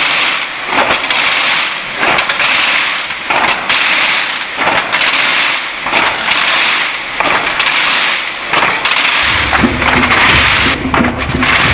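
Wooden wheelbarrow rattles (Czech Easter řehtačky) pushed along a paved street, many at once. Their ratchets make a loud, continuous, crackling clatter. The rattling stands in for church bells, which are silent from Maundy Thursday to Easter. A low rumble joins about nine seconds in.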